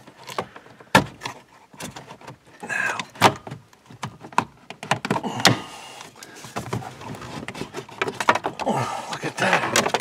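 Plastic center dash trim bezel of a 2013 Ford F-150, the panel holding an air vent and the 12V socket, being pulled free and handled. There are scattered sharp plastic clicks and snaps, with stretches of scraping and rattling in between.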